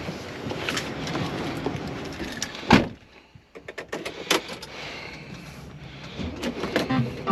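Metal clanks and knocks from truck door hardware over a steady background rumble: one loud bang a little under three seconds in, then several sharp clicks and a clank.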